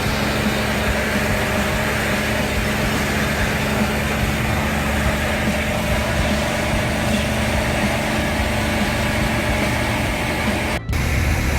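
High-pressure sewer jetter's engine and pump running steadily at a constant pitch, with a brief break near the end.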